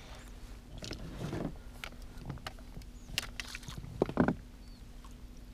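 Scattered light knocks, clicks and rustles of handling a freshly caught pike and tackle in a small boat, with soft thuds about a second in and again near four seconds, over a faint steady hum.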